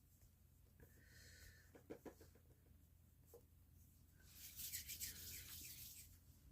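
Near silence: faint rubbing and a few light clicks of fingers working small pieces of modelling clay, with a short breathy hiss about two thirds of the way through.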